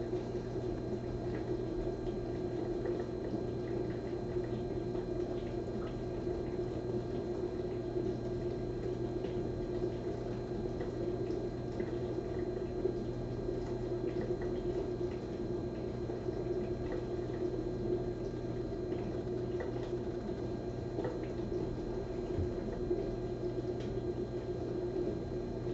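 Room tone: a steady low electrical hum with a few faint scattered clicks.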